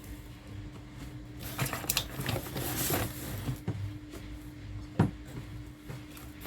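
Cat food packs being handled and stacked: packaging rustles for a second or two, with scattered light knocks and one sharper knock about five seconds in, over a steady low hum.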